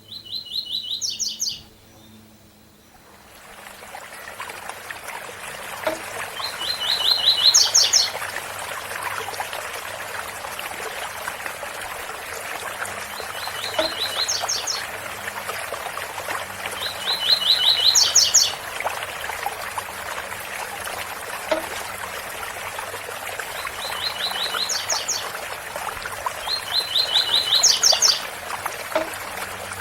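Double-collared seedeater (coleiro) singing its 'tui-tui bitola' song: six short phrases, each a fast run of notes that jumps higher at the end, a few seconds apart. Under them runs the steady rush of a waterfall, which comes in about three seconds in.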